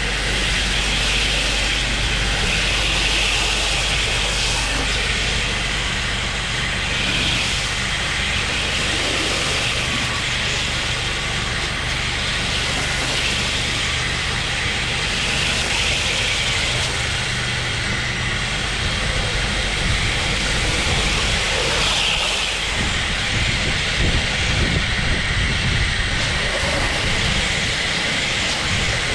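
High-flow pressure washer rig running, with the high-pressure spray hissing steadily over a low engine drone. About two-thirds of the way through, the steady low hum gives way to a rougher, uneven rumble.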